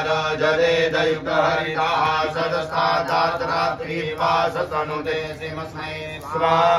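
Priests chanting Vedic homa mantras in Sanskrit, a continuous recitation with no pauses.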